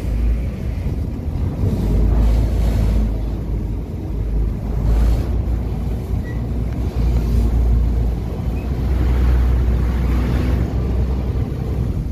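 Wind rumbling on the microphone in repeated gusts over the steady running of a river car ferry's engine.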